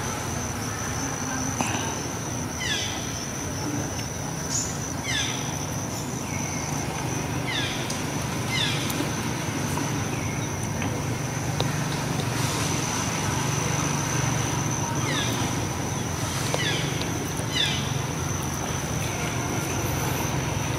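Outdoor ambience in trees: an insect's steady high-pitched trill throughout, bird calls that drop quickly in pitch every second or two, and a low steady rumble underneath.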